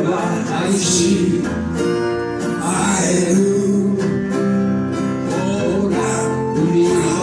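Live acoustic band music: two acoustic guitars strumming with a held lead melody over them.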